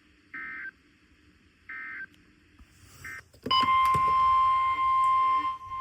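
Three short warbling digital data bursts, the SAME end-of-message code of a NOAA Weather Radio broadcast. About three and a half seconds in, a loud steady 1050 Hz weather radio alert tone starts, the signal that a new warning message follows.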